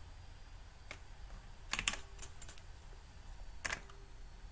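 Scattered computer keyboard keystrokes: a handful of separate key presses, with two louder strikes, one near the middle and one near the end.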